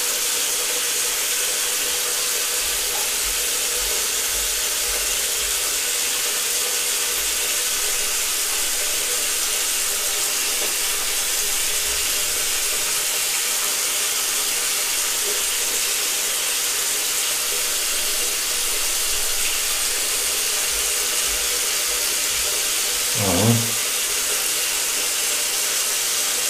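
A bathroom tap running steadily, an even rush of water. A short voice sound comes about 23 seconds in.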